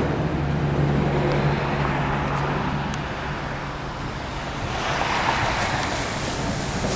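Canadian National diesel locomotives running with a low, steady engine hum, under a rushing noise that swells about five seconds in.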